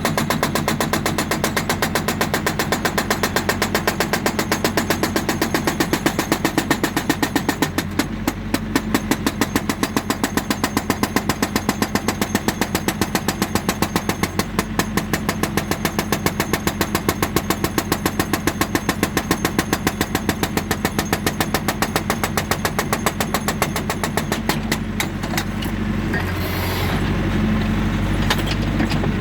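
Hydraulic breaker on a JCB 3D backhoe loader hammering rock in rapid, regular blows over the diesel engine running under load. Near the end the hammering stops and the engine runs on alone.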